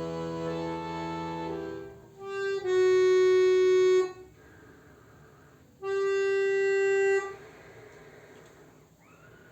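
Solo instrumental playing of the closing bars of a Russian folk-song arrangement: sustained chords, then two long held high notes, each about a second and a half, with a pause between them, after which the playing stops.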